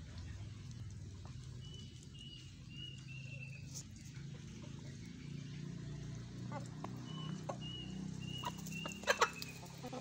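Chickens clucking softly as they peck wet mash from a concrete trough, with two runs of short high chirps. Sharp pecking taps on the trough come in the second half, the loudest two close together near the end.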